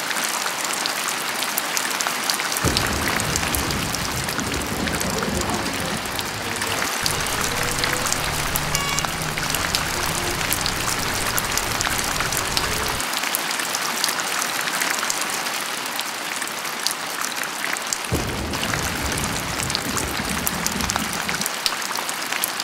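Steady rainfall, an even hiss of dense drops splashing on surfaces. A low rumble joins underneath from about three seconds in until about thirteen, and again for a few seconds near the end.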